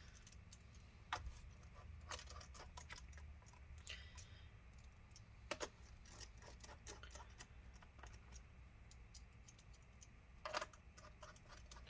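Faint, irregular small clicks and ticks of a pentalobe screwdriver driving the last bottom-cover screws into a MacBook Pro, with a few sharper clicks about a second in, midway and near the end.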